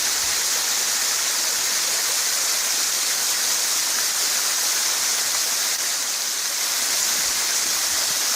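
Thermal-water waterfall: falling water splashing in a steady, even hiss.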